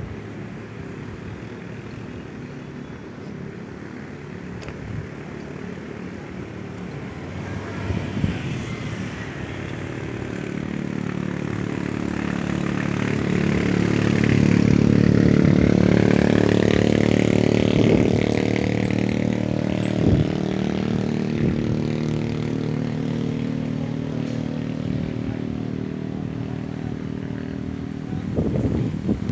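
An engine passing by: it grows louder over several seconds, peaks about halfway through with a falling pitch, and fades away over a steady background rumble.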